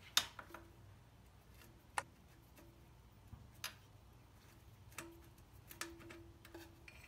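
Scattered light metallic clicks and taps, about six over several seconds, from pliers and a hose clamp being worked on a motorcycle's oil tank return pipe fitting. The first click, just after the start, is the loudest.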